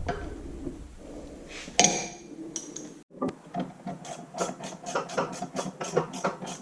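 Ratchet wrench on a socket extension clicking as it tightens bolts on a tractor engine's rear crankshaft seal housing. The clicks come in a quick, even run of about four a second, starting about halfway through.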